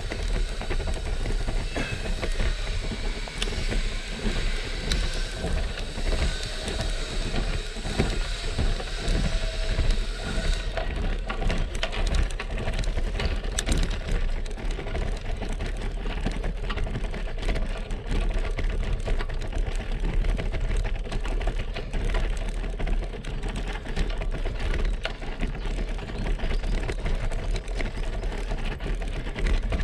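Road bike rolling up a cobblestone climb: tyres and frame rattling and juddering over the setts, a continuous dense clatter over a low rumble. The bike-mounted camera picks up the shaking.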